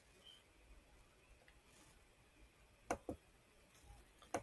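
Computer mouse clicking: two quick double clicks, one about three seconds in and another near the end, over near silence.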